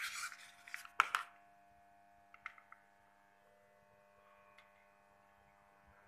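Handling noise of a USB charging cable at a power bank: a brief rustle, a sharp click about a second in and a few faint clicks, then only a faint steady hum.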